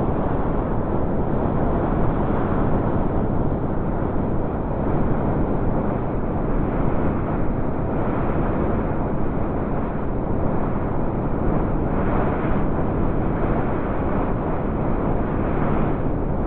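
Blizzard wind blowing in a steady, deep rush with gentle swells in strength.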